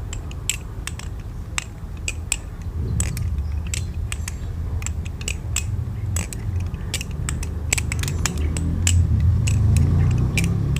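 Balisong (butterfly knife) being flipped through rollover loops: its handles and pins clack and click over and over in an irregular rhythm, over a low rumble.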